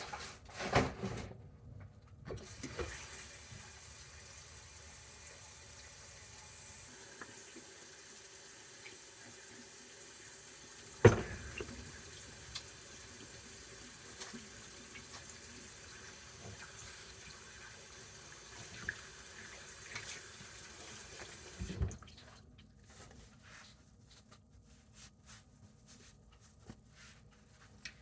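Kitchen tap running in a steady stream for about twenty seconds, then turned off. There are a few knocks as it starts and one sharp knock about halfway through.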